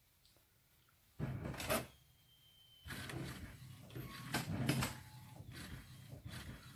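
Brother MFC-J6720DW inkjet printer working on a print job. A short mechanical rattle comes about a second in, then from about three seconds in its mechanism keeps up a run of whirring and clunking strokes.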